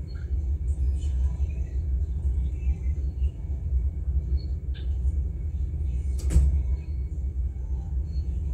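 A steady low rumble, with one sharp knock about six seconds in.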